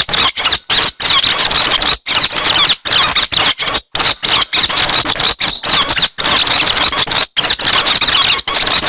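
Recorded call of the 'hec xoan' bird used as a trapping lure: a loud, continuous chatter of rapid, squeaky high-pitched notes, chopped by many short abrupt gaps.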